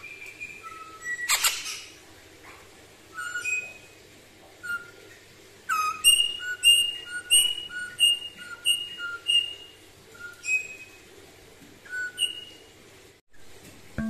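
Eastern rosella whistling: short, clear piping notes, scattered at first, then a quick even run of about three notes a second from about six to nine and a half seconds in, with a few more notes after. A brief loud rustle about a second and a half in.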